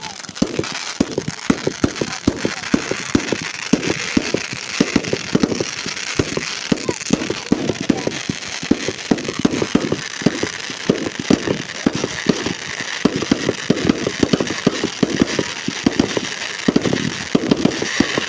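Fireworks display: firework bangs going off in rapid succession, several a second, with crackling over a steady hiss.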